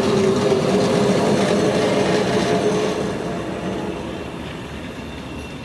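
PCC streetcar rolling past on its rails with a steady hum, growing fainter over the last couple of seconds as it moves away.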